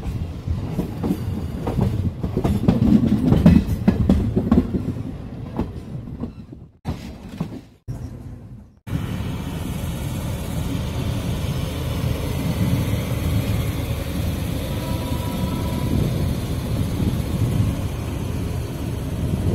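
Passenger train heard from on board while running: a rumble with quick clicking of the wheels over the rails, then, after two brief dropouts near the middle, a steadier, even rolling noise.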